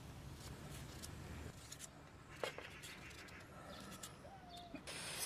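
Quiet outdoor background with a few faint clicks of knives cutting through raw potatoes held in the hand. A short, faint chirp-like tone comes near the end.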